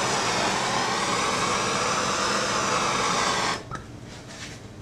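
Handheld gas torch burning with a steady hiss as its flame is played over a polyethylene kayak hull to flame-treat it for epoxy; the hiss cuts off suddenly about three and a half seconds in.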